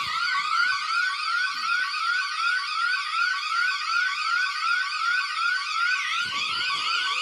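Electronic emergency-alert alarm tone: a loud, continuous siren made of short rising sweeps repeating about three times a second, with a faster warbling tone layered above.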